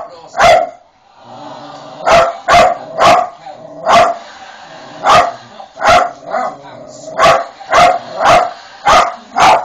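A dog barking repeatedly in sharp, loud single barks, about a dozen in all. After one bark at the start there is a pause of over a second, then the barks come steadily at roughly one to two a second.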